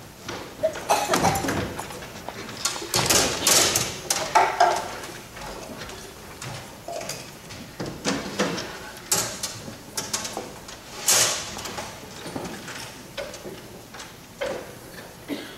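Furniture and props being shifted about between scenes: irregular knocks, bumps and scuffs with footsteps. The loudest cluster comes a few seconds in and a sharp knock about eleven seconds in.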